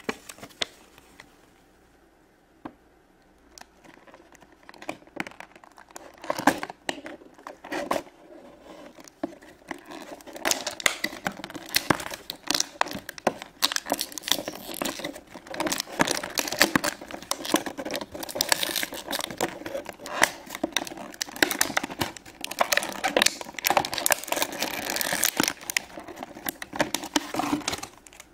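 Crinkling and rustling of plastic and paper toy packaging being handled and opened by hand, full of small crackles and clicks. It is sparse for the first few seconds and then busy and continuous.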